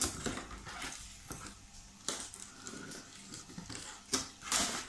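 Cardboard packaging rustling and scraping with small handling clicks as a plastic toy car is worked out through a slot in the box insert, with a louder scrape near the end.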